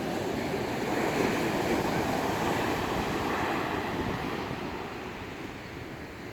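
Rough sea surf breaking and washing in strong wind. The rush swells about a second in and eases toward the end, with wind buffeting the microphone.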